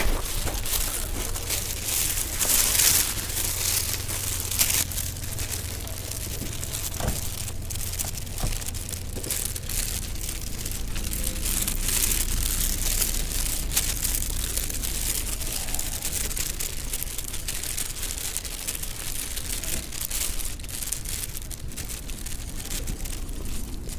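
Steady crackling, rustling noise over a low, constant rumble, from a phone carried on foot across wet, slushy mud.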